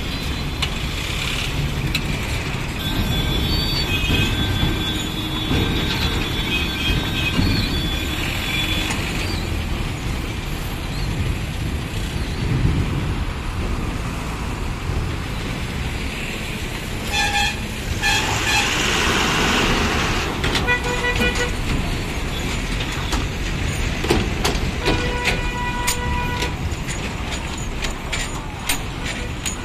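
Heavy diesel trucks idling and creeping in a jam, with a steady engine rumble. Vehicle horns sound several times: one long honk from about three to nine seconds in, then shorter honks around the middle and again near the end. There is a short hiss in between.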